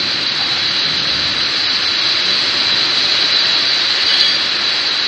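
Heavy rain falling, a steady rushing hiss with no break.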